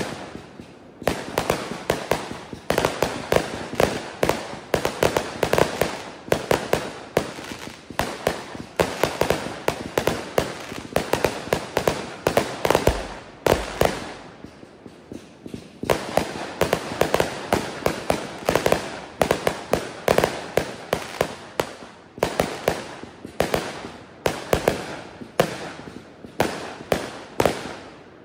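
Aerial fireworks fired from a ground-launched multi-shot cake, going off in fast volleys of bangs, several a second, with short lulls about a second in and around halfway through.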